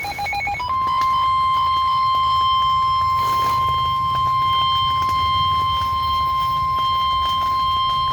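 NOAA Weather Radio 1050 Hz warning alarm tone, a steady high-pitched tone heard through a weather radio's speaker, preceded by a few quick beeps at the very start. The tone signals that a Severe Thunderstorm Warning is about to be read.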